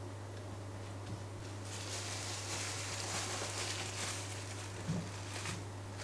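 Plastic cling wrap rustling and crinkling as it is spread over a cutting board, from about two seconds in, with a couple of light knocks near the end, over a steady low hum.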